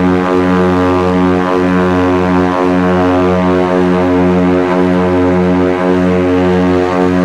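Twin piston engines and propellers of a Britten-Norman BN-2 Islander at takeoff power, heard from inside the cabin as the aircraft leaves the runway and climbs. It is a loud, steady drone with a slow pulsing beat about once a second.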